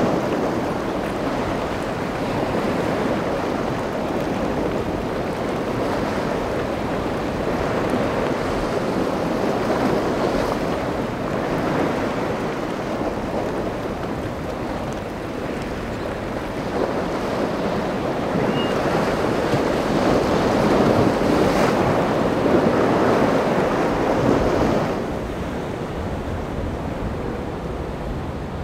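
Rough water and wind on the microphone, with boat engines running underneath. The noise swells for a few seconds and then drops off suddenly near the end.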